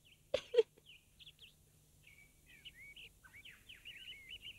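Birds chirping in a forest ambience, a string of faint short twittering calls that glide up and down. About half a second in, two short sharp sobs from a crying girl stand out as the loudest sounds.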